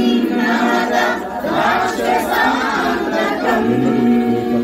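A group of women chanting a Sanskrit devotional verse to Hanuman together in unison, over a steady held drone note.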